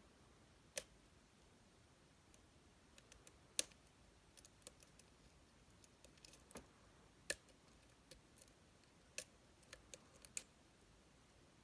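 Sparse, sharp clicks of a hook pick working the pin stacks of a Metal X6V pin-tumbler lock under tension: about a dozen irregular clicks as the pins are lifted and set.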